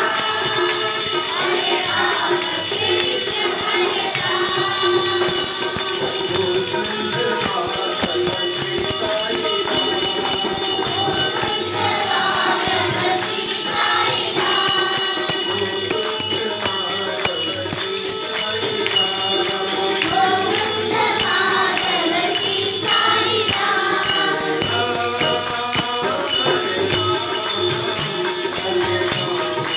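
Voices singing a Hindu devotional bhajan together over a steady jingling percussion beat.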